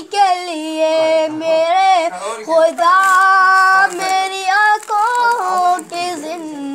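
A child singing a naat in Urdu, a single voice close to the microphone, holding long notes with slides between them.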